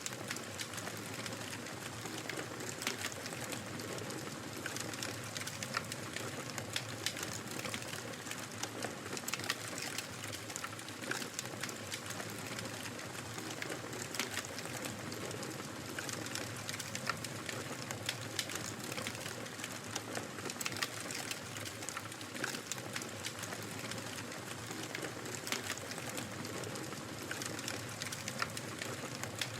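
Wood fire crackling in a fireplace: a steady hiss with frequent irregular sharp pops and snaps.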